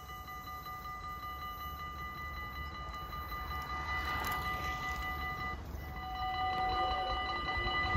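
Dutch level crossing warning bell ringing as a steady, high, multi-toned signal while the barriers lift, over a low rumble. About four seconds in, a road bicycle passes close by with a brief swish.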